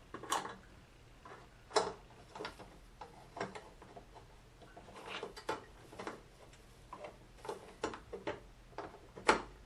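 Irregular clicks and knocks of plastic hair-steamer parts, the hood's flaps and the bracket, being handled and tried together, with the sharpest knock near the end.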